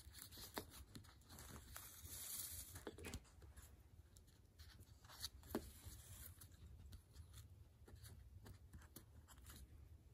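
Faint handling sounds as a half-hitch knot is tied in a hand-sewn book. Sewing thread is drawn through with a soft hiss lasting about two seconds, starting about a second in, among light clicks and taps of paper pages and cover boards, the sharpest about five seconds in.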